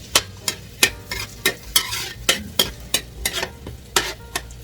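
Onions sautéing in oil and butter in a pan, sizzling, while a utensil stirs them, knocking and scraping against the pan about three times a second.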